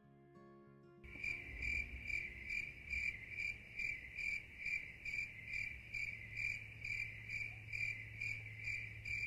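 A cricket chirping in a steady, even rhythm, a little over two chirps a second, starting abruptly about a second in as the last notes of music end.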